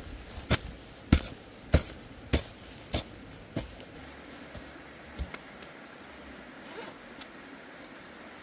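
Hoe blade chopping into dry soil, a stroke about every 0.6 seconds for six strokes, then one more about five seconds in. Near the end, a quieter jacket zip being undone.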